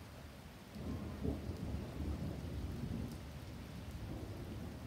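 Steady rain with a low rumble of thunder that swells about a second in and rolls on for a few seconds before easing off.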